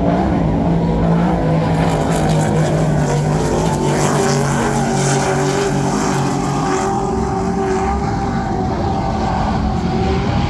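Offshore racing powerboats' engines droning as the Supercat-class catamarans run past, the pitch dropping a little over the first few seconds and then holding steady.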